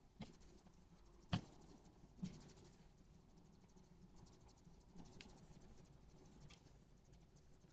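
Young red foxes scuffling, heard as faint, scattered quick taps and patters, with one sharper knock about a second in.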